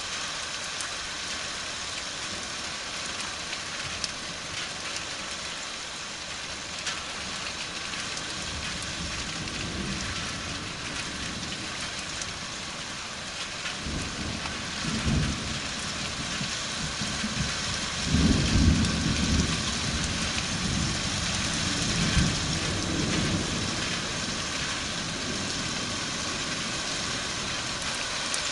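Steady rain falling, with rolling thunder rumbling low from about halfway through, loudest about two-thirds of the way in, then dying away.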